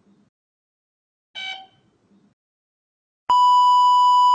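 A steady electronic beep tone starts about three seconds in and holds one pitch without a break. Before it, about a second and a half in, comes a single short pitched blip.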